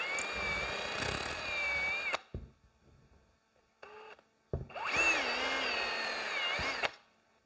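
Electric drill running in two bursts of about two and a half seconds each, with a whine that wavers slightly in pitch and a brief blip between the bursts, boring out a hole.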